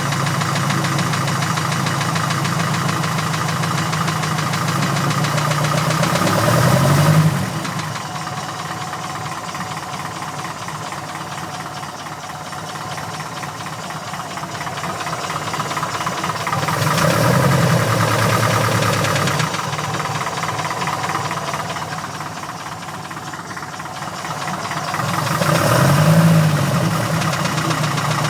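Porsche 914's air-cooled engine idling with a knock and briefly revved three times; the owner takes the knock for rod knock, still there after a valve adjustment.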